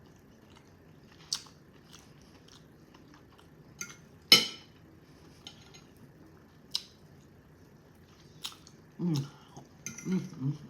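Close-up eating sounds: chewing with scattered sharp clicks, the loudest a little over four seconds in. A few short low mouth sounds come near the end.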